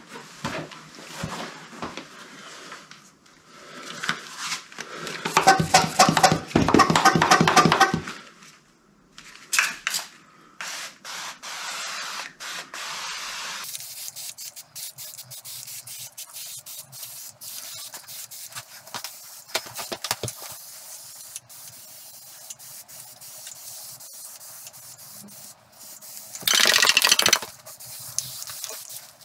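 Hand-pump pressure sprayer misting degreaser onto an engine block in repeated short hissing bursts, with one longer, louder spray near the end.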